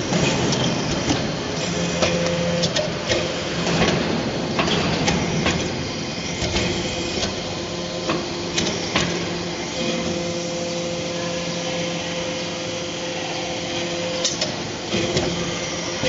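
Hydraulic briquetting press compacting aluminum scrap: the hydraulic pump unit hums steadily while the press cycles, with irregular sharp metallic clanks and clicks as the round aluminum briquettes are pushed out and drop onto the floor.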